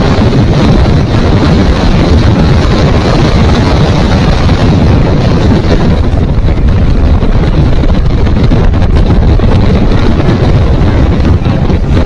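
Speedboat under way: a loud, steady rumble of wind buffeting the microphone, mixed with boat and water noise.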